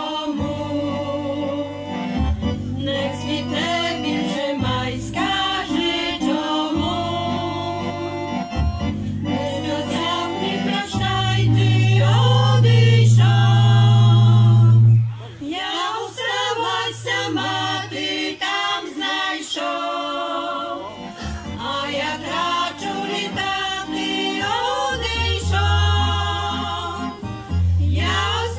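A women's folk vocal group sings a traditional song in harmony, accompanied by an accordion playing held bass notes. The music breaks off briefly about halfway through, then carries on.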